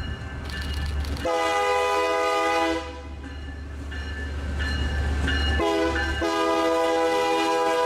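Horn of Pacific Harbor Line locomotive 20, an MP20B-3 rebuilt from a GP40, sounding several notes at once as it leads a freight train past, over the low rumble of the diesel engine. There is one blast of about a second and a half starting about a second in, then a short blast and a longer one from about halfway on.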